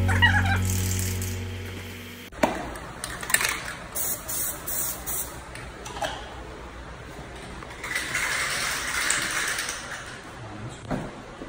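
Background music fading out over the first two seconds. After a cut, faint handling knocks and clicks, with a stretch of hiss about eight seconds in.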